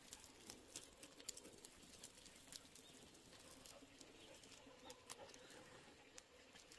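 Near silence, with faint, scattered light ticks of footsteps and dogs' paws on a paved road.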